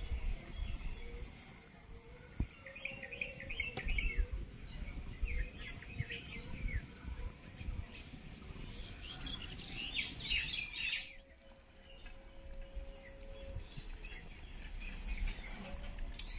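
Small birds chirping in several short spells of quick, high calls, over a low rumble.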